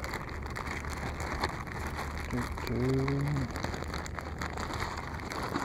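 Wind buffeting the microphone: a steady rushing with a dense crackle running through it. A man's short hummed note comes about three seconds in.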